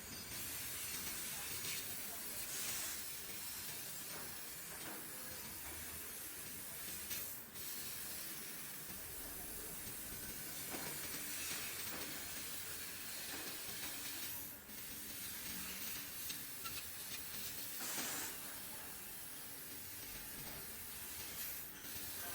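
Laser cutter working red copper sheet: a steady high hiss of the cutting jet, with a few brief louder bursts and short dips every several seconds.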